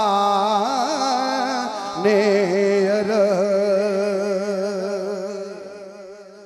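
A man singing a devotional kalaam solo into a microphone, in ornamented naat-style recitation over a steady low drone. A winding phrase settles about two seconds in on one long, wavering held note, which fades away near the end.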